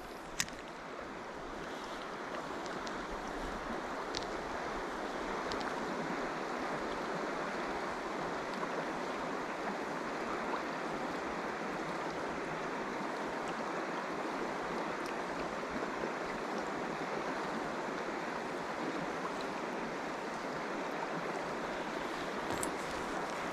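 Mountain stream running: a steady rush of flowing water that swells up over the first few seconds and then holds even. A single sharp click sounds about half a second in.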